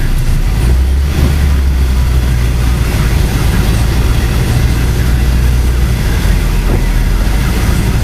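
Vehicle engine running, heard from inside the cabin: a steady low rumble whose pitch drops slightly about six seconds in.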